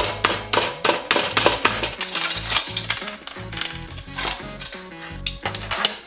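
Metal clinks and taps of tools and parts as a BMX rear wheel and axle are fitted into the frame, over background music with a steady beat.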